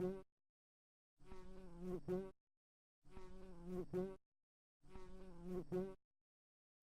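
A fly buzzing in short bursts of about a second each, a steady droning hum, three times with silent gaps of under a second between, the same buzz repeating at an even pace.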